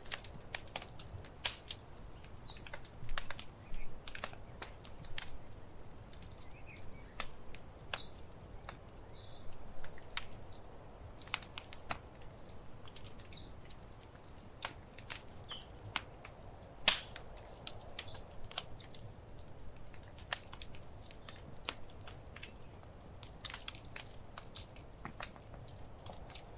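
Wood fire crackling in a fireplace: irregular sharp pops and snaps over a faint low hiss, with one louder pop about seventeen seconds in.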